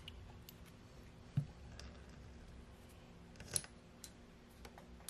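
Light clicks and taps as a wooden stick stirs white paint in a small glass jar and the nail tools are handled, with two sharper knocks about a second and a half and three and a half seconds in.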